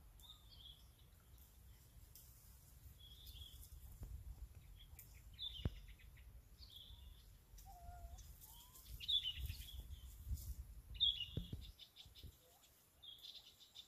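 A bird chirping over and over, short high calls every one to two seconds, over a low rumble with a few sharp knocks.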